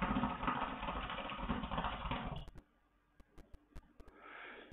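Hookah bubbling as smoke is drawn through the hose: a fast, irregular gurgle for about two and a half seconds. Near the end comes a soft breathy exhale of the smoke.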